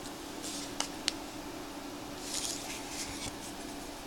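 Trading cards being handled and slid past one another by hand: a few soft swishes and two light clicks about a second in, over a steady faint hum.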